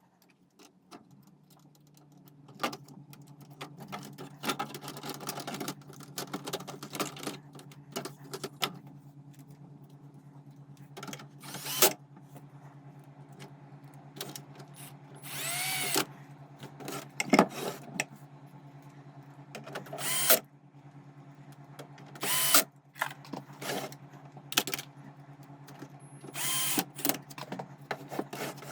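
Steady low hum with repeated clicks and knocks, broken by several short whirring bursts of a small motor.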